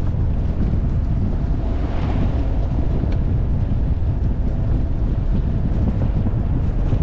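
Wind buffeting the microphone of a vehicle driving on a dirt road, a steady low rumble. An oncoming vehicle passes about two seconds in, a brief swell of higher noise.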